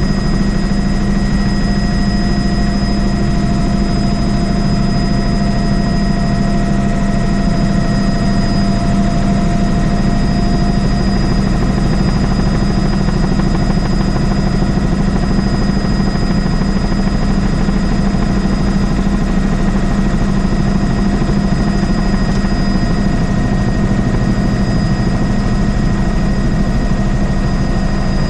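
Helicopter in flight heard from inside the cabin: the steady drone of the rotor and turbine engine, with a thin high whine over it.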